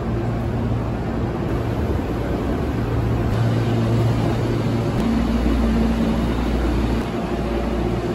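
Steady hum and whir of a Hankyu electric train standing at the platform with its auxiliary equipment running. A deeper hum comes in about five seconds in and drops away near seven.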